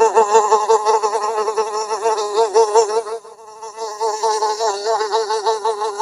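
A fly buzzing loudly in flight, its wing drone wavering up and down in pitch as it moves about. The buzz fades briefly about halfway through, then comes back.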